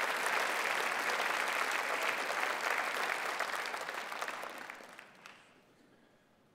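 Large audience applauding steadily, the applause fading away over the last two seconds.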